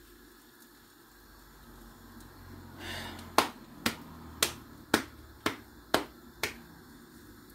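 Hands slapping a floured ball of chapati dough: seven sharp pats about two a second, starting a few seconds in.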